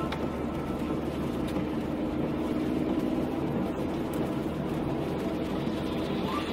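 Car driving on a wet road, heard from inside the cabin: steady engine and tyre noise.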